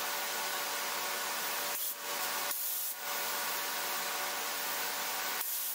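Gravity-feed HVLP spray gun hissing steadily as compressed air atomizes automotive clear coat, with a few brief breaks in the spray.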